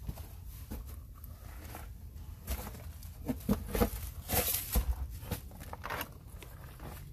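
Footsteps crunching over loose rock and gravel, uneven steps that grow louder and scrapier in the middle.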